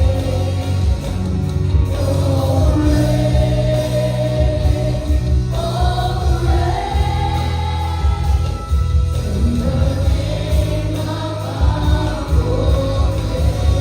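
Christian worship song sung by a group of voices together over a full band with a steady, strong bass.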